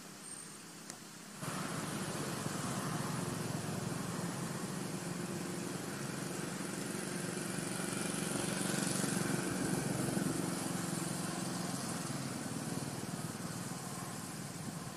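A motor engine running steadily, coming in abruptly about a second and a half in and swelling a little around the middle.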